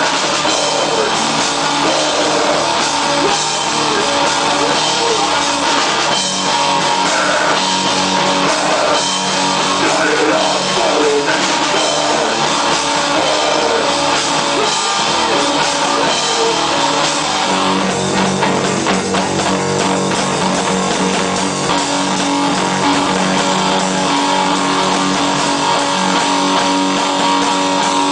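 Rock music with guitar and a drum kit, loud and continuous; the sound grows fuller with heavier sustained low notes about two-thirds of the way through.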